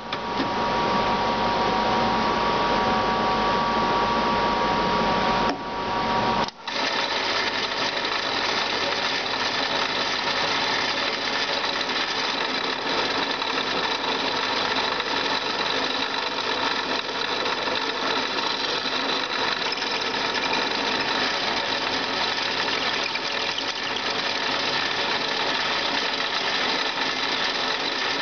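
Drill running steadily at low speed, about 800 rpm, boring holes in an aluminium bike rim. The sound breaks off briefly about six seconds in, then runs on steadily.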